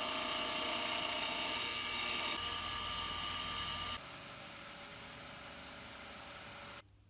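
Wood lathe running with a steady motor whine while a gouge cuts a small spinning piece of wood, the cutting hiss growing brighter a couple of seconds in. About four seconds in it gives way to a quieter drill press boring a hole through the centre of the turned piece, which stops shortly before the end.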